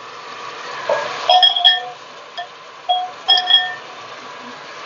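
Glass mixing bowl ringing with short clinks, several in a row, as it knocks against the rim of an aluminium pressure cooker while raw mutton pieces are tipped in. Beneath the clinks, meat sizzles steadily in hot oil and ginger-garlic paste.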